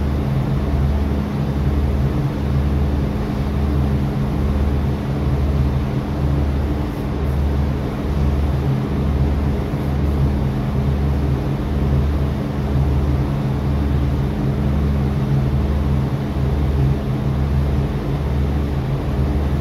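Steady low drone of a large cargo ship's engines and machinery heard on deck, with a slow, even throb a little more than once a second as the ship manoeuvres under way.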